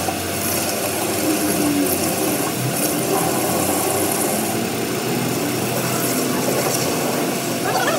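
Metal lathe running while a carbide-tipped tool faces a turned metal part, peeling off long stringy chips. It makes a steady machine running noise with a high cutting hiss that swells twice in the first half.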